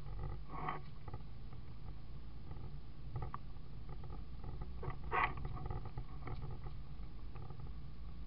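Isuzu D-Max ute driving slowly up a rough dirt track, heard from inside the cabin: a steady low engine and road rumble, with a few knocks and rattles as the body jolts over ruts, the loudest about five seconds in.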